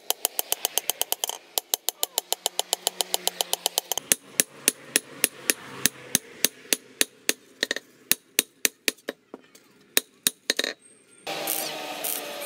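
Rapid, regular hammer blows on a steel billhook blade held on a post anvil, sharp ringing strikes at about four to five a second with a couple of brief pauses. Near the end a cut brings in the crackling hiss of stick arc welding.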